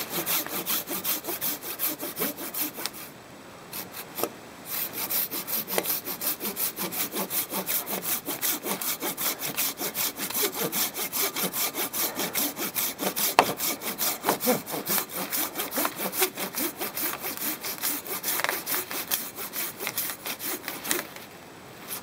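Silky Bigboy 2000 folding handsaw cutting through a large tree trunk in fast, even back-and-forth strokes, with a short pause about three seconds in. A single sharp knock a little past halfway.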